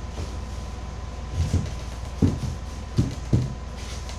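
Four or five dull knocks of plywood pieces being handled and set against the foam kayak hull, over a steady low hum.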